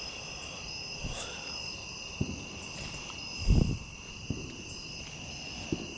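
Crickets chirping steadily in a night chorus, with a few low thumps, the loudest about three and a half seconds in.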